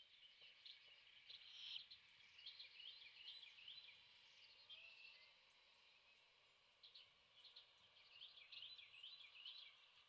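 Faint chirps and short trilled phrases of small songbirds, in two runs of song a few seconds apart.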